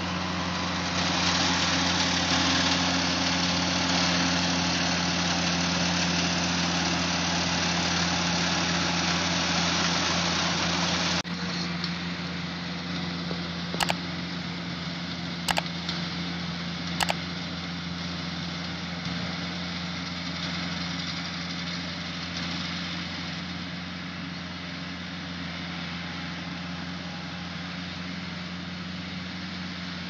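Kubota mini combine harvester engines running steadily while cutting paddy, with a constant low hum. A little over a third of the way in, the sound drops suddenly to a quieter, more distant engine. Three sharp clicks come over the next few seconds from a subscribe-button animation.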